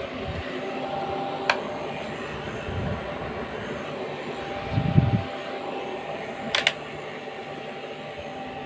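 A bank of electric fans running together: a steady whirring hum with several held tones. A sharp click comes about one and a half seconds in, a low thump about five seconds in, and a brief clatter of clicks a little later.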